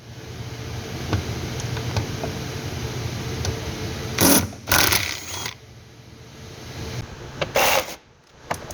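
A power tool's motor runs steadily while spinning out the 14 mm bolts that hold a guard cover under the fuel tank. About halfway through come several loud, short clattering bursts.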